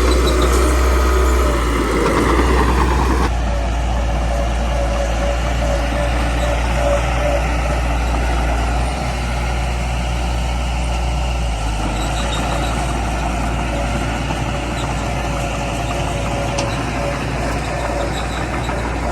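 Small bulldozer's engine running steadily under work, with a deep drone; the sound changes abruptly about three seconds in.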